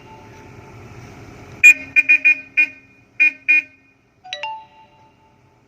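A low engine rumble that cuts off, then a run of seven short horn toots in an uneven rhythm, and a single sharp ding with a short ringing tone near the end.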